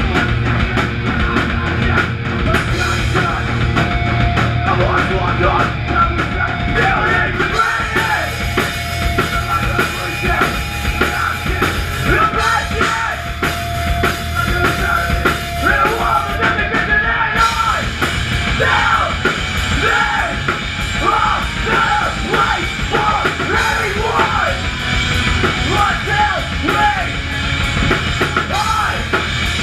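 Hardcore punk band playing live, loud and continuous: distorted electric guitars and bass over a pounding drum kit, with a vocalist shouting and screaming over it, most densely in the second half.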